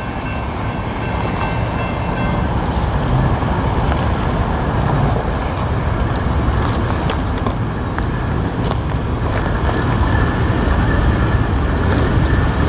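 Freight train rolling past: a steady low rumble of wheels on rail with occasional sharp clicks.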